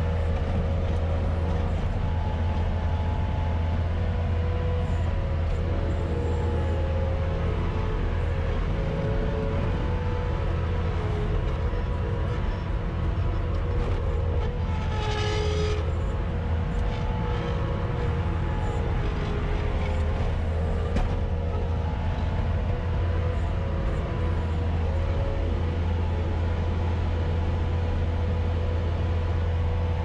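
Bobcat S250 skid-steer loader's diesel engine running steadily, heard from inside the cab, with a steady whine over it. A brief harsher noise comes about halfway through.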